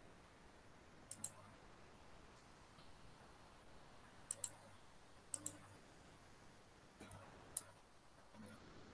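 Sharp clicks, mostly in quick pairs, a handful of times over faint background hiss: a pair about a second in, two pairs around four and a half and five and a half seconds, and one or two single clicks near seven and a half seconds.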